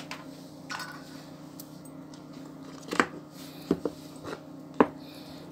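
Small speakers and wires handled on a work board: a few sharp knocks and clicks as parts are moved and set down, the loudest about three seconds in and near the end, over a steady faint hum.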